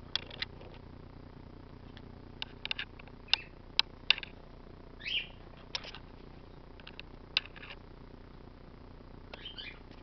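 Dusky-headed conure moving about its cage: a scatter of sharp clicks and taps, with a short squeaky chirp about halfway through and another near the end.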